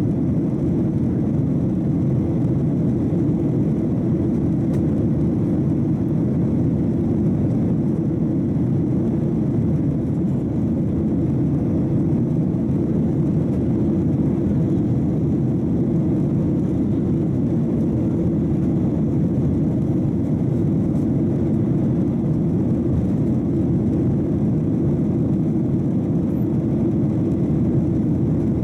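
Boeing 737-800 in flight heard from inside the cabin over the wing: the steady, deep, even noise of its CFM56-7B jet engines and the air rushing past the fuselage.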